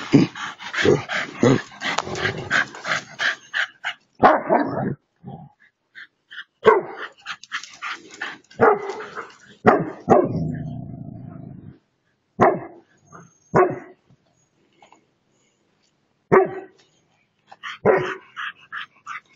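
Dog barking: a quick run of short barks in the first few seconds, then single barks and short clusters with pauses between them.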